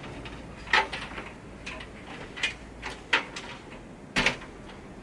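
Sharp plastic clicks and knocks from cables being unplugged and pulled out inside a desktop PC case, about six of them irregularly spaced, the loudest about a second in and a double one near the end.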